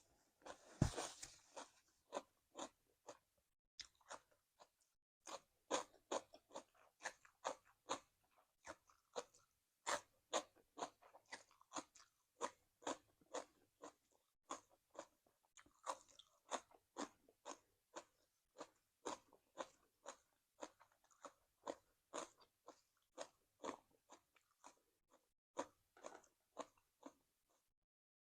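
Close-miked crunchy chewing of cucumber salad and raw vegetables, crisp chews at about two a second in a steady rhythm. A louder crunching bite comes about a second in, and the chewing stops near the end.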